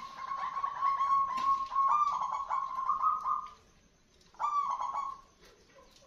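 Zebra dove singing: one long, rapidly pulsing coo phrase lasting about three and a half seconds, then a shorter phrase about four and a half seconds in.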